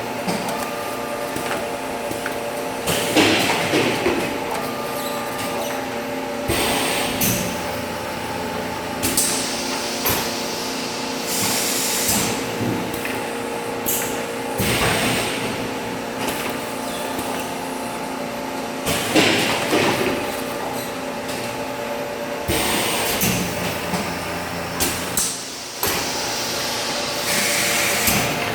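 Gas-flush packaging machine running: a steady machine hum with recurring hissing bursts of air or gas every few seconds, and mechanical clunks between them.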